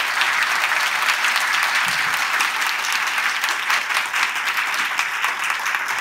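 Large audience applauding steadily, dense hand-clapping at the close of a lecture.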